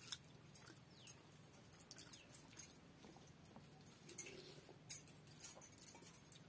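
Close-up eating sounds of rice and fish curry eaten by hand: irregular wet smacks and clicks of chewing and fingers working the rice, with light jingles from bangles.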